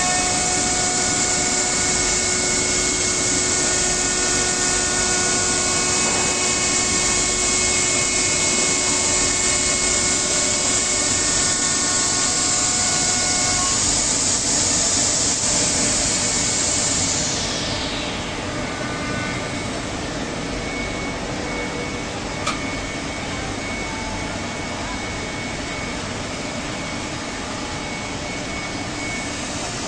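A 5-axis CNC woodworking machine's spindle running with a steady high whine while drilling holes into a curved wooden workpiece, over a loud hiss. About two-thirds of the way through, the hiss stops, leaving a quieter machine hum and a whine.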